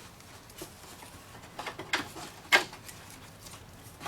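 A few sharp clicks and knocks of tools and parts being handled at the car battery, the loudest about two and a half seconds in.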